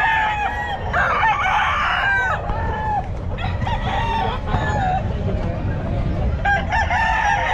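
Gamecock roosters crowing repeatedly, several calls overlapping one another, over a steady low rumble.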